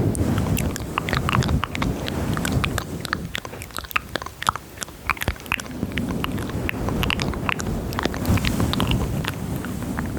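ASMR mouth sounds close to the microphone: many quick wet clicks and smacks of lips and tongue, thickest in the middle, over a low rustling rumble.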